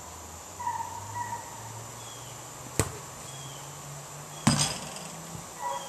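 A sharp knock, then about a second and a half later a louder hit with a brief metallic ring as the basketball strikes the hoop. Birds chirp in the background.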